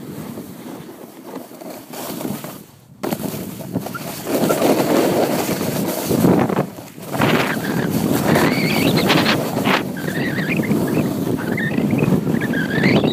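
A snowboard sliding and scraping over snow on a downhill run, with wind noise on the microphone. The scraping drops away about 3 s in and comes back louder a second later. In the second half a wavering high squeak runs over it.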